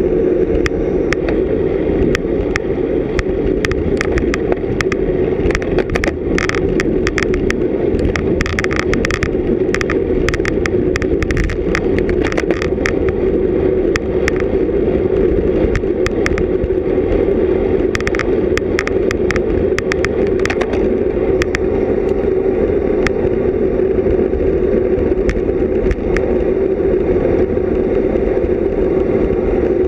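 Steady rush of wind and road noise from a road bicycle ridden at race speed. Scattered sharp clicks and ticks come through it, thickest from about a fifth to nearly half of the way through, then thinning out.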